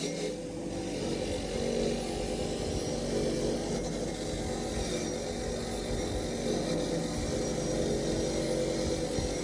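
A workshop machine's motor running steadily, with a constant hum and grinding or cutting noise, as when a synchronizer cone is being machined or ground.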